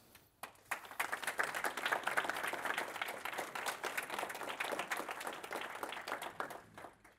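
Audience applauding: a dense patter of many hands clapping that starts about half a second in, swells within a second, and dies away near the end.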